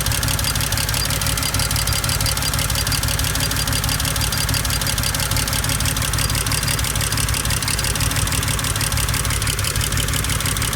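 BMW 335i's turbocharged inline-six engine idling steadily.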